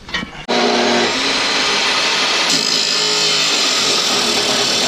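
A power tool running continuously at full speed, its pitch shifting about halfway through, then cutting off abruptly.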